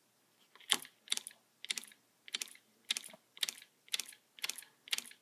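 Homemade solenoid engine, built around a solenoid salvaged from an old printer, running slowly. It gives a sharp little clicking clatter about twice a second, one for each pull-in stroke of the solenoid as it drives the flywheel.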